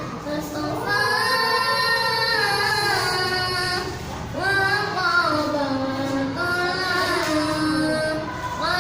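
A child singing solo in long, drawn-out phrases with ornamented turns on the held notes, with a short break for breath about four seconds in.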